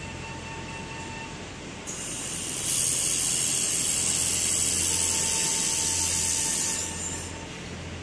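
A 1500 W handheld fiber laser welding torch welding a seam on a steel box: a steady high hiss comes in about two seconds in, swells, holds for about four seconds and stops about seven seconds in.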